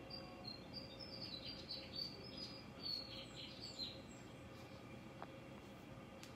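A rapid string of short, high-pitched bird chirps over the first four seconds, with a faint steady hum underneath.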